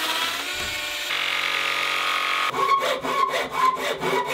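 A Bosch 10.8 V cordless mini circular saw runs steadily with a whine, trimming plywood along a guide rail. About two and a half seconds in it gives way to a handsaw cutting plywood in quick, even rasping strokes.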